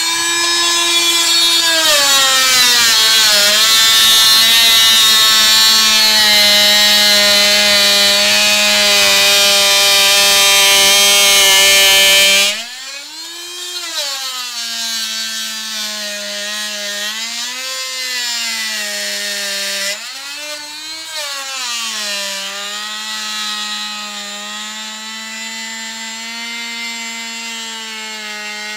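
Corded oscillating multi-tool saw running with a loud, steady whine as its blade cuts through deer skull bone at the antler bases. The pitch drops as the blade bites in. About halfway through the whine becomes thinner and quieter, and its pitch dips several times as the blade loads in the bone.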